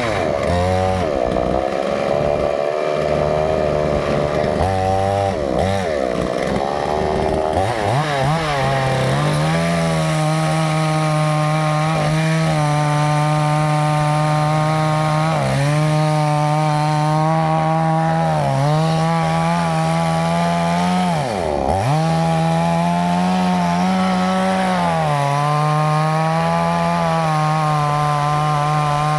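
Chainsaw running at high speed and cutting into wood. Its engine note wavers early on, then holds steady, dipping briefly in pitch and recovering several times as the chain takes load in the cut.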